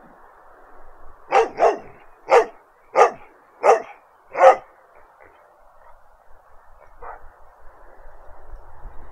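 A dog barking six times in quick succession, the first two barks close together and the rest about two-thirds of a second apart, then one faint bark a couple of seconds later.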